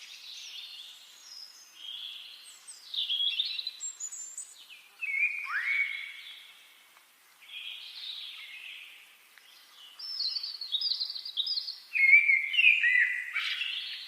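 Forest songbirds singing: a run of short chirped and whistled phrases, one burst every second or two at different pitches, with the loudest phrases near the end.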